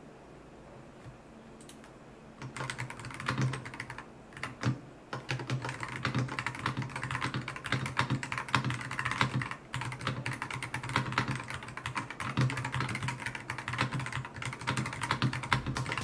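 A stock, unmodded Akko 5075S mechanical keyboard typed on fast, with a dense, continuous run of key clacks. The typing starts about two and a half seconds in, after a quiet start.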